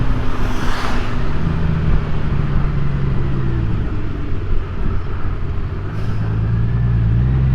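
2018 Honda Gold Wing's flat-six engine running under way, with wind and wet-road noise. Its pitch dips and comes back up about a second in, after a brief rush of noise, then holds steady.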